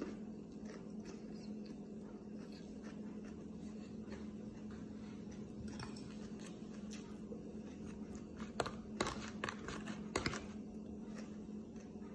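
Quiet chewing and mouth sounds of someone eating rice, kebab and grilled onion, over a steady low hum. A cluster of sharp clicks and taps comes between about eight and ten seconds in, typical of a spoon against a bowl or plate.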